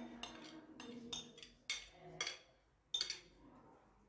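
Cutlery clinking against a dish, a quick run of light clinks about three a second, stopping about three seconds in.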